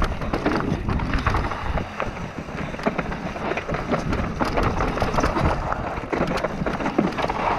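Mountain bike riding fast down a rocky dirt trail: tyres rumbling and crunching over dirt and stones, with frequent clattering ticks and knocks from the bike over bumps, and wind rushing on the microphone.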